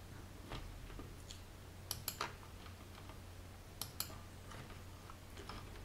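Computer mouse clicking: two sharp clusters of clicks, about two seconds in and again about four seconds in, with a few fainter ticks between, over a low steady hum.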